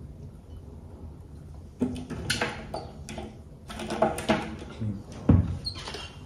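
Clattering and knocking of kitchen things, beginning about two seconds in, with a voice among it.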